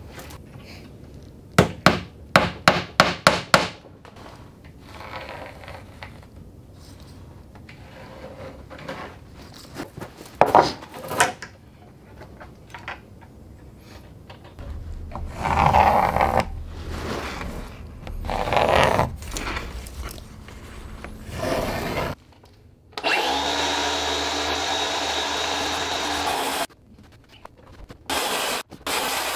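Hammer driving finish nails into a white oak board, about nine quick blows in two seconds. This is followed by knocking and rubbing as the thin wooden batten is handled and bent against the nails. Near the end a circular saw runs steadily with a whine for about three seconds, stops, then starts again.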